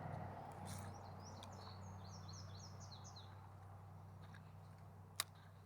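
A songbird singing a quick run of short high chirps, starting about a second in and lasting about two seconds, over a low steady hum. A single sharp click near the end.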